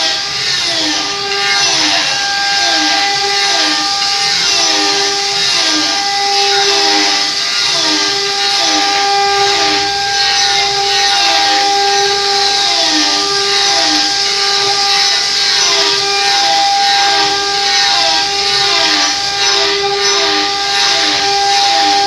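Sawmill saw running and cutting wood: a steady whine with a pulse that repeats about every half second.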